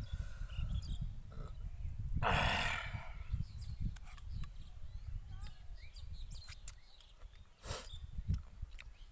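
Mouth sounds of a person eating rice in water by hand, close to the microphone: small wet clicks of chewing and finger-licking, with a louder noisy burst about two seconds in and a shorter one near the end, over a steady low rumble.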